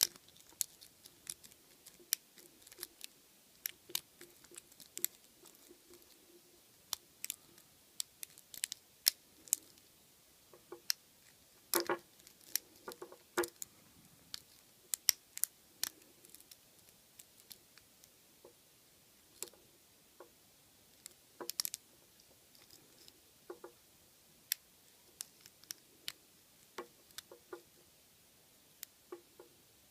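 Lock pick and tension wrench working the pins of a Squire SAL/40 padlock: irregular small metallic clicks and scrapes as the pick sets pins one by one, with a louder flurry of clicks about twelve seconds in and another about twenty-one seconds in. The many clicks come from serrated and spool pins catching at false sets.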